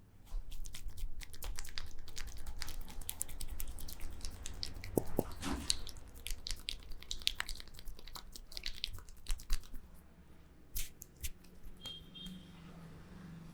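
Close-up massage sounds: hands rubbing and pressing over hair and skin, making a dense crackling and clicking. It thins to a few separate clicks after about ten seconds.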